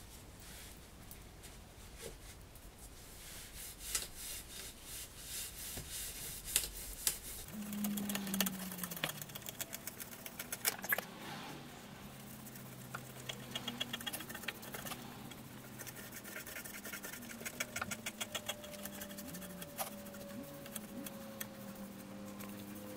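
Faint, quick rubbing and scraping strokes of hand work on a stainless steel motorcycle exhaust. After about seven seconds, faint steady low hums join in.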